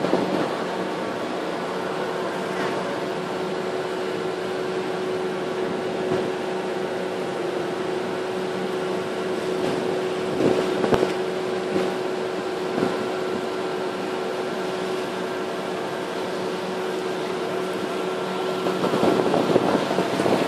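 A boat's engine droning steadily, heard on deck over water churning in its wake, with a few brief louder bursts about halfway and near the end.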